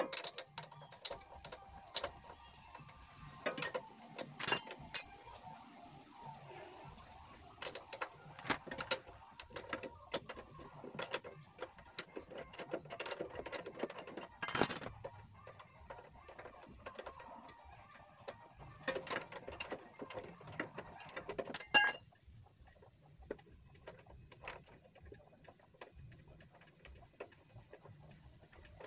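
Metal spanner clicking and knocking on the spark plug of a small water-pump engine as the plug is changed: a run of irregular metallic clicks, with a few louder clanks about five, fifteen and twenty-two seconds in, then only faint ticks.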